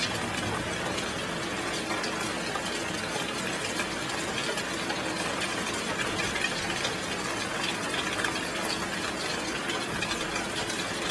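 Heavy rain falling steadily, an even hiss with small scattered ticks of drops.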